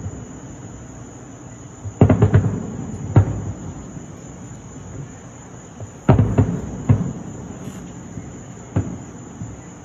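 Fireworks shells bursting: a quick cluster of booms about two seconds in, a single bang a second later, another cluster about six seconds in and one more bang near the end. Crickets keep up a steady high trill underneath.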